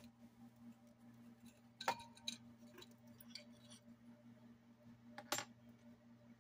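A few faint clinks and knocks from a ceiling light fixture with glass shades being handled as it is lowered, over a low steady hum.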